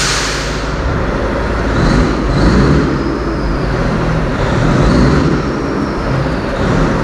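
Steady low rumble of a running engine, with a short hiss right at the start.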